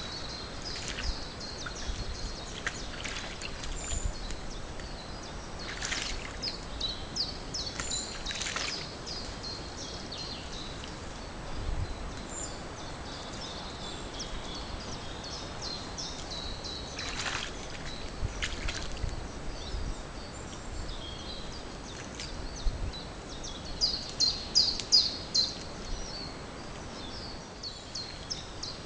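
Spring songbirds chirping and singing in the forest, recorded by a trail camera's microphone, busiest and loudest near the end. A thin steady high tone from the camera runs underneath, and a few brief noises come about six, eight and seventeen seconds in.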